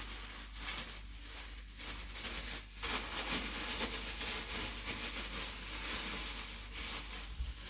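Rustling and crinkling of plastic packs of dried leaves being handled and opened, in uneven scrapes with short gaps.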